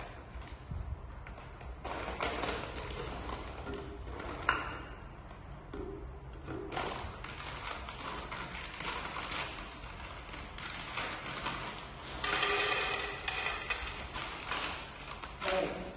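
Plastic snack packet crinkling and being opened, with small taps and clicks. About twelve seconds in comes a louder rush as small chocolate-coated pieces pour out of the packet onto a plastic plate.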